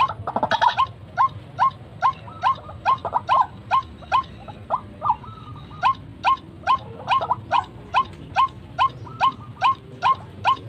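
White-breasted waterhen calling: a long, regular series of short, hooked notes repeated about two and a half times a second.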